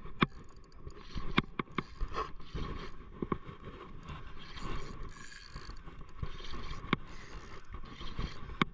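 Spinning reel being cranked by hand to retrieve line: a steady mechanical whir from the reel, with a few sharp clicks and knocks scattered through it.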